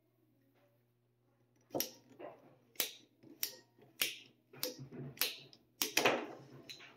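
Ratcheting pipe cutter being cranked through CPVC pipe: starting about two seconds in, about eight sharp clicks, roughly one every half second, as the ratchet advances the blade.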